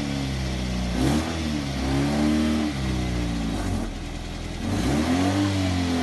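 A car engine revving up and falling back in short blips, about three times, with a dip in between.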